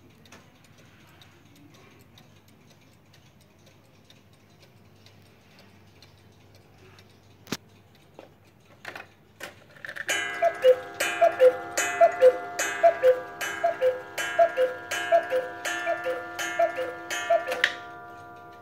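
Mechanical Black Forest cuckoo clock ticking, with a few clicks of the striking mechanism. About ten seconds in, the cuckoo calls about a dozen times, each a falling two-note call with a click, striking the hour at twelve.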